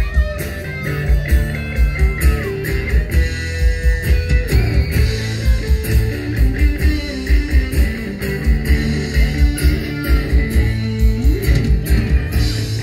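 Live rock band playing an instrumental passage: electric guitar lead lines that slide in pitch over strummed acoustic guitar, bass guitar and a steady kick-drum beat, amplified through outdoor PA speakers.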